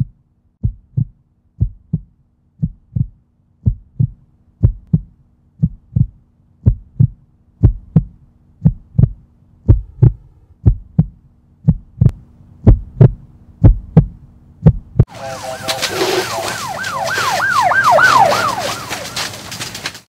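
Heartbeat sound effect, a lub-dub about once a second over a faint low drone, growing louder. About fifteen seconds in it gives way to the crackle and rush of a house fire with an emergency siren wailing, its pitch sweeping quickly up and down.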